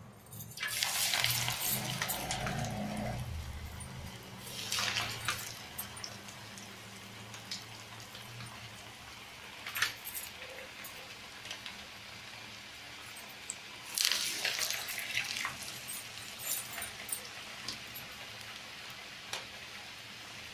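Hot oil sizzling steadily as coconut fritters deep-fry, with louder surges of hissing when fresh fritters go into the oil, and a few light clicks of a utensil.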